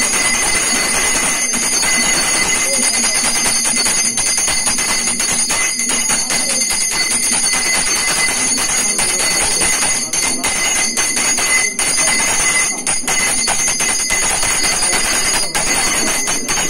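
Brass puja hand bell ringing steadily, over a loud din of voices.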